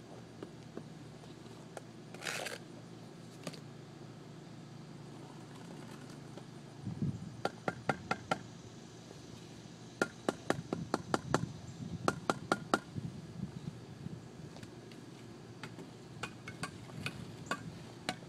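Steel brick trowel tapping and clinking against bricks as they are set in mortar, in several quick runs of sharp, slightly ringing taps, with a brief scrape about two seconds in.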